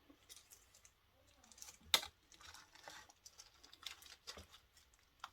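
Small clicks and taps of hard cured resin pieces being handled, with one sharper click about two seconds in.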